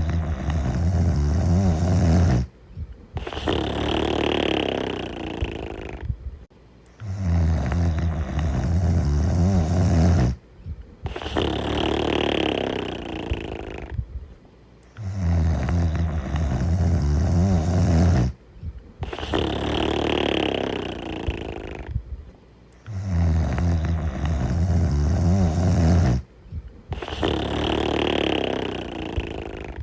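Loud snoring, repeating evenly about four times: a low, rasping inhale of about three seconds, a short pause, then a breathier, higher exhale of about three seconds, with the cycle coming round about every eight seconds.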